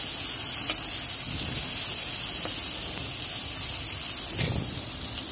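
Oil sizzling steadily as sliced onions and tomatoes fry in a nonstick pan, with soft scrapes of a wooden spatula stirring them.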